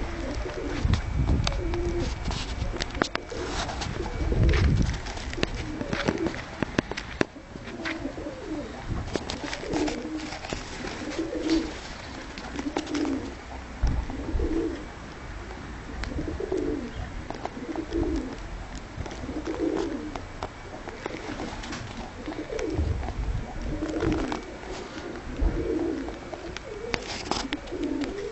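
Dönek (Turkish tumbler) pigeons cooing over and over, a coo every second or two, with scattered sharp clicks and low thumps, heaviest in the first few seconds.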